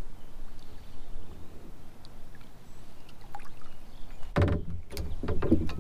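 A hooked northern pike splashing at the surface beside a plastic kayak. About four and a half seconds in comes a burst of louder splashing and knocking as the fish thrashes against the hull.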